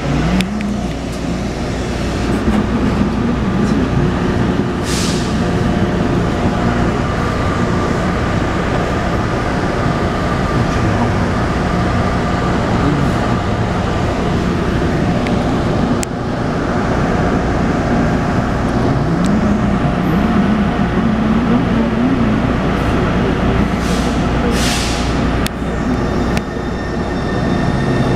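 Taipei Metro C301 train's refurbished propulsion inverter and running gear, heard from inside the car: steady tones over a wavering low hum, the abnormal inverter noise the car is known for. Two short hisses, about five seconds in and near the end.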